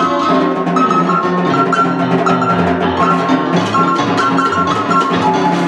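An electronic keyboard track with a repeating high melody of short notes, with live snare drum strokes played along with it.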